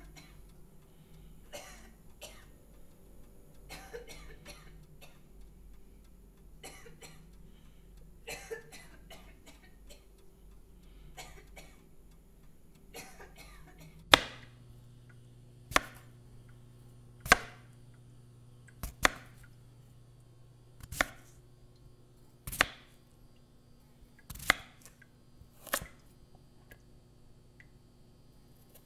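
Chef's knife chopping vegetables on a wooden cutting board. The first chop comes about halfway through, then one sharp chop every one and a half to two seconds, about eight in all, over a low steady hum. Before the chopping there are only faint scattered clicks and rustles.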